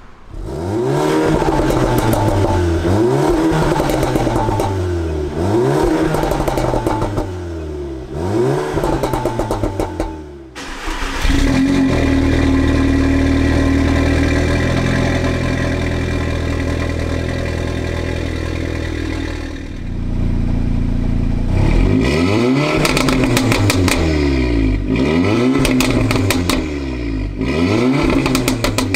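Audi A3's turbocharged four-cylinder revved through an APR downpipe and a non-resonated Milltek cat-back whose rear muffler has been cut open to give more tone. Quick rev blips rise and fall, then the revs are held steady for about eight seconds, then more blips follow, with crackling pops as the revs drop.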